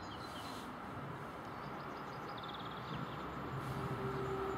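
Diesel locomotive approaching, its engine rumble slowly growing louder, with a steady hum joining about three and a half seconds in. Birds chirp briefly twice.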